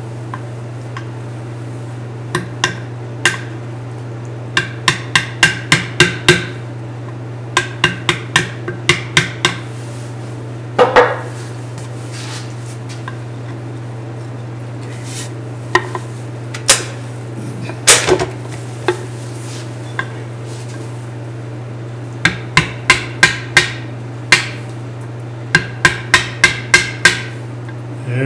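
Brass-headed mallet striking the handle of a carving chisel, driving it into a nub of Jatoba (Brazilian cherry) left in the centre of a cutting board on a stopped lathe. The sharp taps come in quick runs of several a second, with pauses and a few single blows between runs, over a steady low hum.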